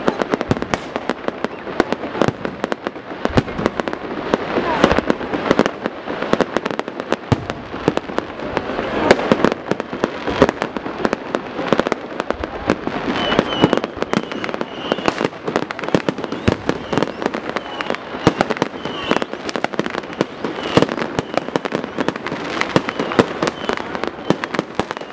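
Fireworks display: many shells bursting in rapid succession, a dense, continuous run of bangs and crackling.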